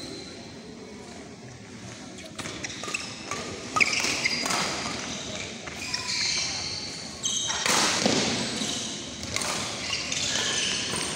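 Badminton being played in a large indoor hall: rackets hitting the shuttlecock and players' feet thudding on the court, with voices in the background. The first couple of seconds are quieter; the activity picks up from about two and a half seconds in.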